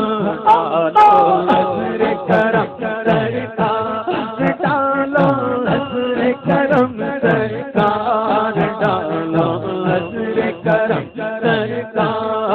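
A man singing a devotional manqabat melody into a microphone, drawing out long ornamented notes over a steady beat of short percussive strokes.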